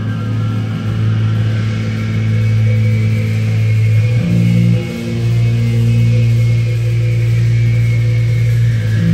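A heavy rock band playing live through a club PA: electric guitars and bass hold long, low, loud chords over drums, and the chord changes a little after four seconds in.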